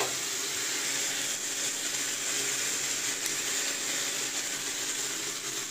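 Chicken pieces, bell peppers and pineapple sizzling steadily in a hot frying pan.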